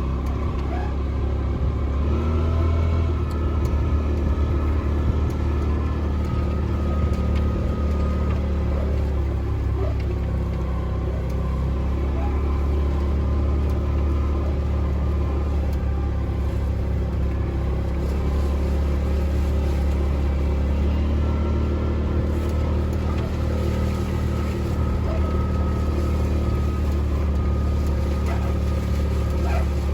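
A motor vehicle's engine running steadily, a low drone that holds even throughout.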